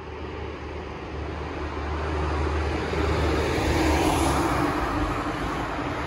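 Outdoor street noise with a passing vehicle that grows louder to its peak about four seconds in and then fades, over a steady low rumble.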